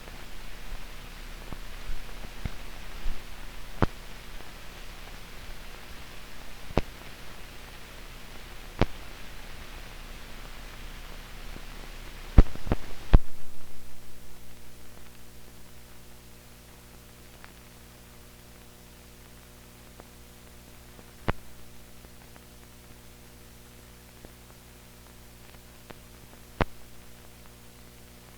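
Blank soundtrack of old newsreel film: steady electrical hum under hiss, broken by scattered sharp clicks and pops. A pair of loud pops comes about twelve seconds in, after which the hiss drops away and the hum carries on.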